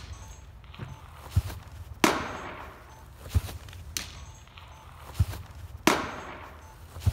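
Baseballs thrown by a pitcher smacking into a strike-zone net target: two sharp cracks about four seconds apart, each echoing through the large indoor facility. Each crack is preceded by a short low thud, typical of the stride foot landing.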